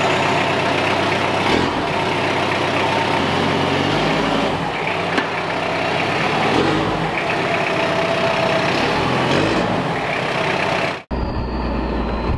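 Toyota Hilux Surf's 2L-TE turbo-diesel engine running at idle just after being started, its pitch shifting a few times. Just before the end it cuts abruptly to the same engine heard from inside the cab on the road, a steadier, deeper drone.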